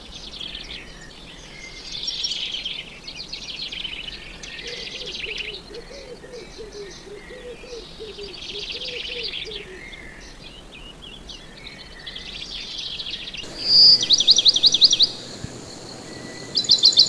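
Small songbirds chirping in clustered song phrases every second or two. About 13 seconds in, after an abrupt change in background, come two louder, fast trills close to the microphone, the second near the end.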